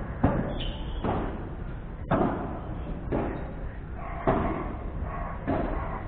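A ball being struck back and forth in a padel rally: sharp hits about once a second, each with a short ring-out.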